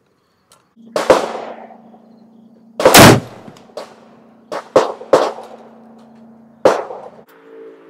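Gunshots at uneven spacing, six in all, the loudest about three seconds in: the .71 calibre Austrian M1849 Kammerbuchse muzzleloading rifle firing from the bench, with the other shots sharper and quieter. A steady low hum runs under them, and music begins near the end.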